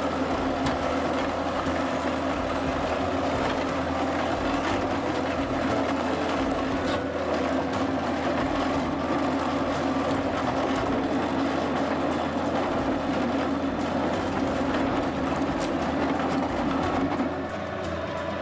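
Hypro 765 HB debarker running as it strips bark from eucalyptus logs: a steady machine drone with constant clattering. The sound drops and changes about a second before the end.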